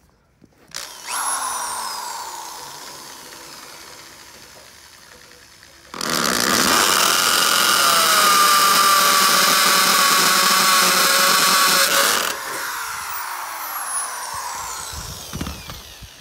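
Power drill boring into a concrete slab through a post's steel base plate. A short run that winds down with a falling whine, then about six seconds of loud, steady drilling that stops and spins down the same way.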